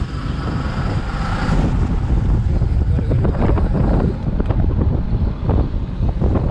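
Wind buffeting the microphone on a fishing boat at sea, a loud fluttering rumble, with a few brief sharp noises in the middle.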